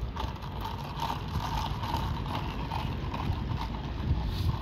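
Ice rattling and knocking in a plastic cup of iced coffee as it is stirred with a straw, repeated small clicks over a low rumble of wind on the microphone.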